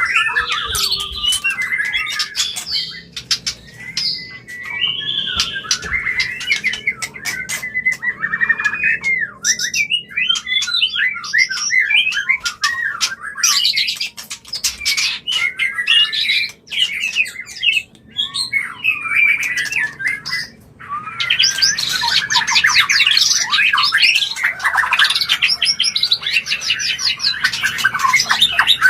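White-rumped shamas (murai batu) giving their breeding calls: varied whistled song phrases mixed with harsh squawks and sharp clicking notes. The calling grows denser after a short pause about two-thirds of the way in.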